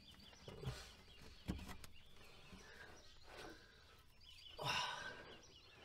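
Faint rubbing and handling sounds as old silicone spark plug boots, glued on with age, are twisted and worked on the plugs of a Ford 300 inline-six, with a small click about a second and a half in and a louder scrape near the end.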